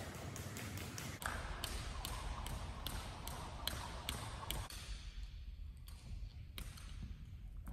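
Jump rope slapping a hardwood gym floor in a steady rhythm, about two to three sharp ticks a second. The ticks come faster at first, thin out briefly past the middle, then pick up again as the rope is swung to one side.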